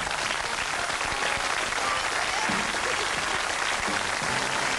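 Studio audience applauding steadily as a guest walks on.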